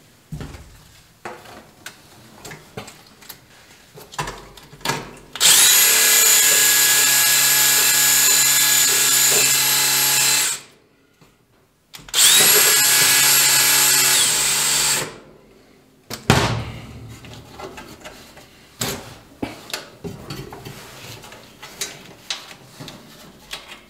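Cordless drill run twice into the truck's sheet-metal firewall, about five seconds and then about three seconds, its motor whine rising as each run starts. Small clicks and knocks of handling come before and after.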